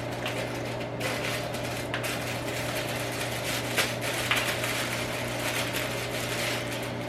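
A plastic bag of powder bleach rustling and crinkling as the powder is tipped out into a bucket, over a steady low electrical hum.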